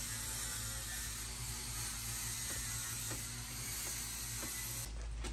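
A few faint, sharp clicks of metal hand tools being handled at the handlebar, over a steady background hiss.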